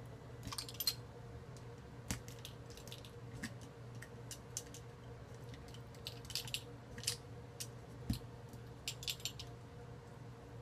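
Faint, scattered small clicks and soft wet handling sounds as a blade cuts and hands work the tough skin around a channel catfish's head on a wooden board, with a slightly louder knock about eight seconds in. A steady low hum runs underneath.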